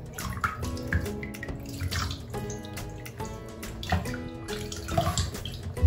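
Water splashing and dripping in a small basin as a hand scoops it over a wet puppy being bathed, with background music playing throughout.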